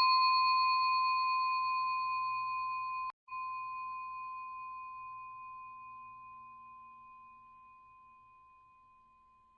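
A single struck bell-like chime ringing out and slowly fading away. The ring breaks off for a moment about three seconds in, then carries on dying away.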